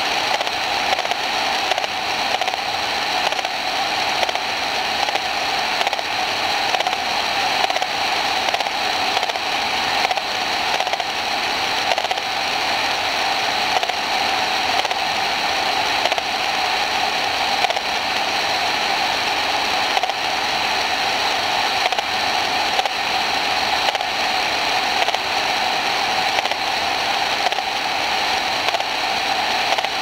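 Steady static-like hiss with a faint crackle, unchanging throughout.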